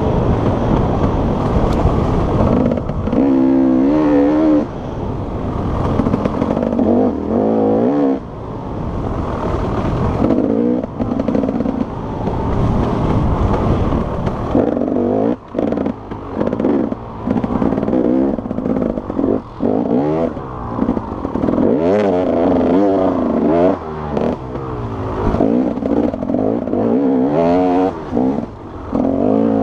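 Enduro motorcycle engine heard from on the bike, revving hard and easing off over and over, its pitch climbing through each gear and falling as the throttle closes.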